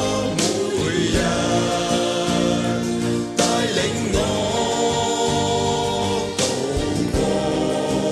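Worship-song music: a band playing sustained chords under held, choir-like singing, with a cymbal hit about every three seconds.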